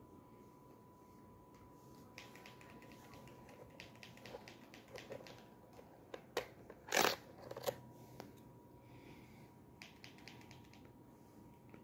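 Light clicks and taps, a run of them a few seconds in, then one louder short scuffing noise about seven seconds in, over a faint steady high-pitched tone.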